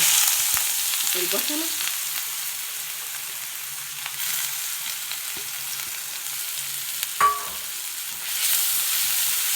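Grated onion sizzling in hot oil in a frying pan. The sizzle is loudest as the onion goes in, settles lower, and swells again near the end, with one short clink about seven seconds in.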